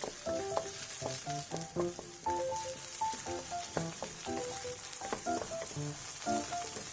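Food sizzling as it fries in a pan, a steady hiss, under background music made of short, quick notes.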